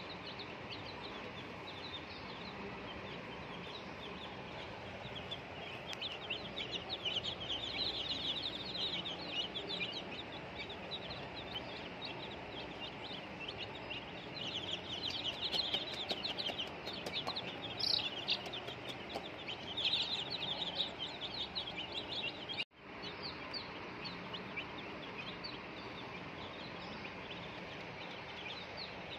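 A crowd of baby chicks peeping, many short high chirps overlapping without pause, with louder bursts of peeping every few seconds. The sound cuts out for an instant about two-thirds of the way through.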